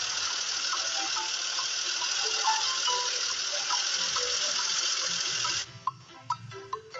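A steady hissing rush like running or pouring water, with soft background music under it. It cuts off suddenly about five and a half seconds in, leaving only light plinking music.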